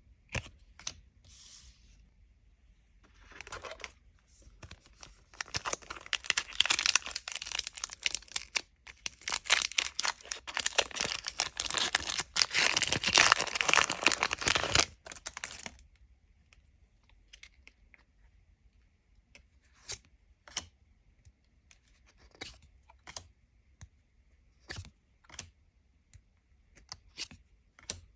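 Foil booster-pack wrapper being torn open and crinkled for about ten seconds, followed by scattered light clicks and taps as cards are handled.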